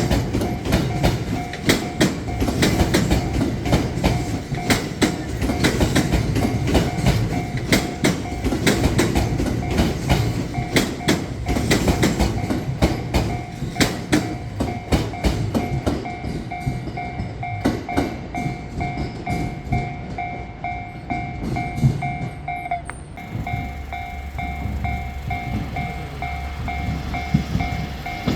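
Train running over the level crossing, its wheels clacking rapidly over the rail joints, while the crossing's warning bell rings with a steady pulsing two-tone sound. About two-thirds of the way through, the clacking stops and a low hum remains under the bell.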